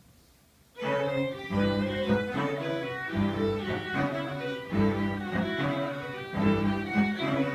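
String quartet of violins, viola and cello starting to play together about a second in, a passage of short repeated chords with a steady pulse.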